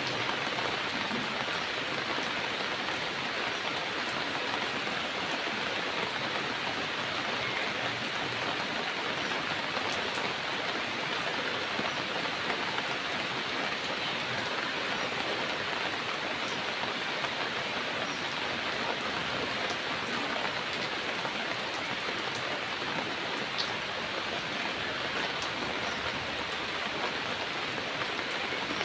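Heavy rain falling steadily, an even hiss of drops with faint scattered patters on surfaces.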